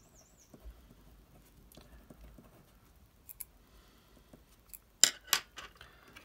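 Ballpoint pen scratching faintly on paper as a few words are written, then two sharp clicks in quick succession about five seconds in.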